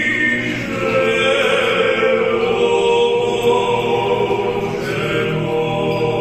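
A cappella choir singing slow, sustained chords in close harmony.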